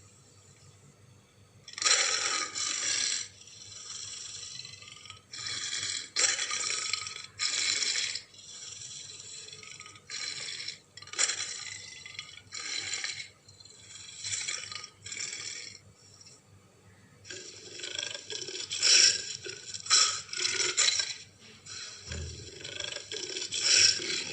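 Sound effects of an American lion, the extinct Pleistocene big cat: a run of short, raspy growls and snarls with short gaps, starting about two seconds in.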